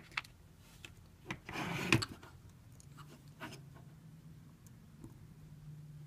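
A small screwdriver turning a tiny side screw into the metal housing of a Blazer ES-1000 butane torch, with light clicks of handling and a short scraping rub about a second and a half in.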